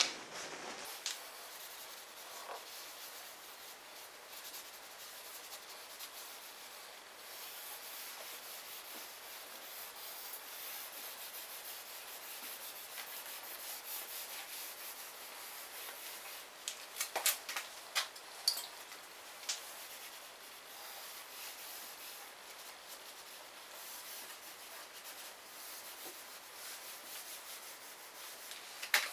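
Cloth rubbing over a car's plastic door trim, a faint steady wiping hiss, with a few sharp clicks a little past halfway.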